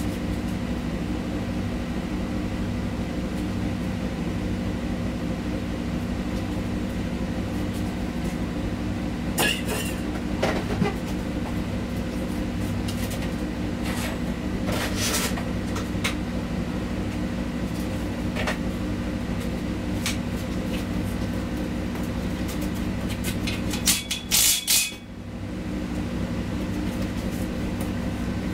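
A machine running with a steady low hum, with a few scattered clicks and knocks; the hum drops away briefly about 25 seconds in.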